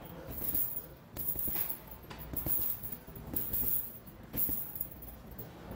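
Faint, sparse hip-hop beat with no vocals, the tail end of a track, pulsing about once a second.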